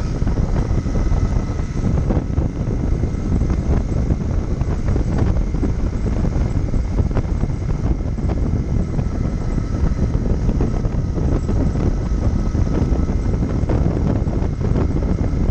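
Royal Enfield Interceptor 650's parallel-twin engine running steadily at riding speed, heard from the saddle under heavy wind and road noise, with many small knocks and rattles throughout.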